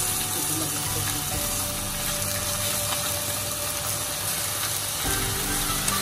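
Thin pork slices sizzling as they fry in a nonstick pan, with steady background music underneath.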